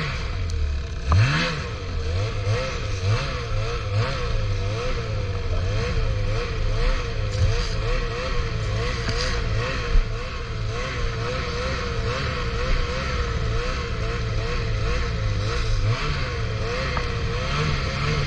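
Ski-Doo Summit 600R E-TEC snowmobile's two-stroke twin engine running under way, revving up twice near the start and then holding a wavering, fairly steady pitch. It dips and picks up again near the end, with a few short knocks along the way.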